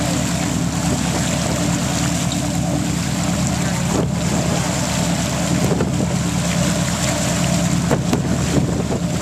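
A charter fishing boat's engines running steadily at trolling speed, a constant low drone, with wind on the microphone and rushing water.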